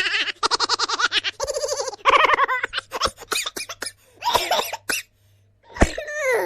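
Silly laughing sound effect: a voice laughing in rapid, pulsing bursts with short breaks between them, ending in a falling, drawn-out laugh near the end.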